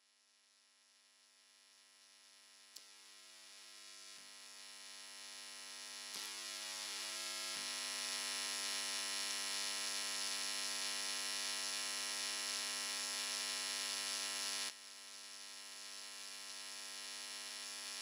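Sustained synthesizer drone of several steady tones, fading in from silence over the first few seconds, holding level, dropping suddenly about fifteen seconds in, then swelling again.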